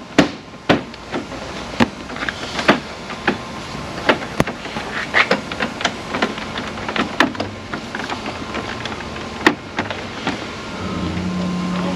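Irregular clicks and light knocks as an aftermarket front grille is handled and clipped into the bumper. A steady low hum comes in near the end.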